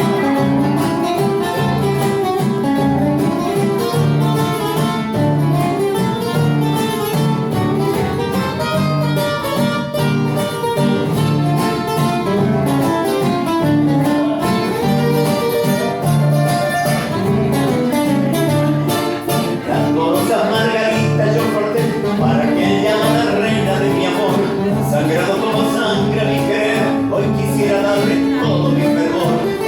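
Guitar ensemble of guitarrón, guitar and requinto playing live: plucked strings over a steady repeating bass line, with busier high melodic runs in the last third.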